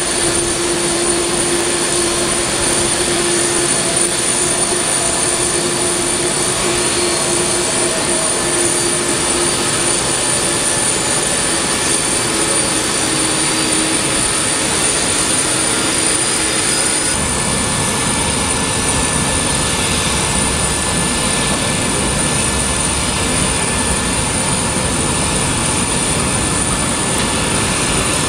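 Jet engines of a taxiing Boeing 767-300 running at idle, a steady rush of jet noise with a held whine. About two-thirds of the way through it cuts to a deeper rumble with a higher steady whine, from the rear-mounted engines of a taxiing Boeing 727.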